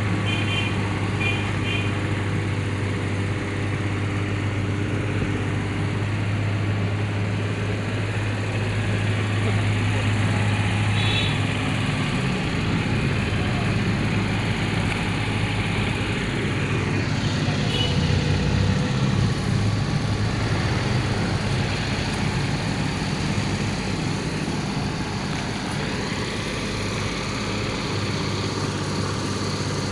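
Mini excavator's diesel engine running, its low hum steady for the first dozen seconds and then wavering in pitch. A few short high beeps sound over it.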